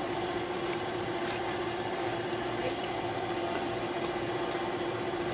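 A blacksmith's forge running steadily: an even rushing noise with a constant hum beneath it.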